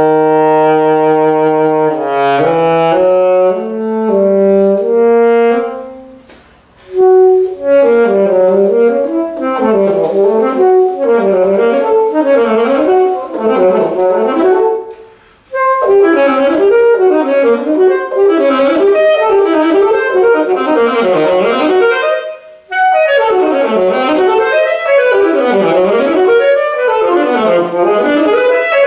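Saxophone playing a concert prelude. It holds one long note, plays a short phrase, then moves into fast runs that sweep up and down, broken by a few brief pauses for breath.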